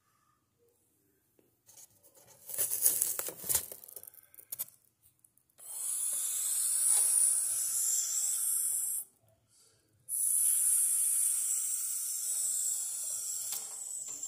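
Rustling and scraping handling noise: a patch of irregular crackling about two seconds in, then two long stretches of steady hissing scraping of about three and four seconds, with a short break between them.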